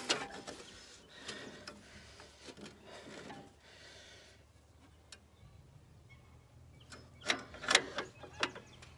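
Metal-on-metal clicks and clinks of a wrench and a steel hydraulic hose fitting being threaded and tightened. The sharp clicks come in clusters near the start and again near the end, with a brief rustle about four seconds in.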